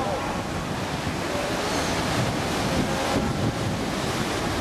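Surf washing over a rocky shore, with steady wind buffeting the microphone.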